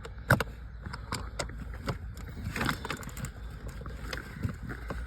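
Scattered clicks, knocks and short scrapes of hands working in a car's passenger footwell, shifting the floor mat aside, with bumps from the camera being jostled in one hand.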